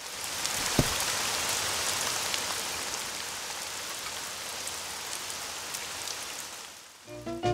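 Steady rain falling, an even hiss that fades in at the start and fades out shortly before the end.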